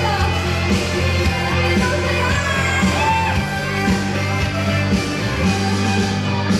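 Live pop music from a band on a concert sound system, with a steady drum and bass beat and a woman singing over it.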